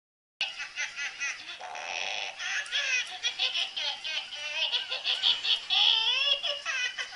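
A baby laughing and squealing in quick, high-pitched bursts, starting abruptly about half a second in, with a short rasping noise around two seconds in.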